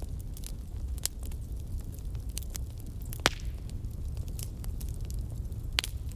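Wood fire crackling and popping over a low steady rumble of flames, with irregular snaps and a sharp loud pop about halfway through.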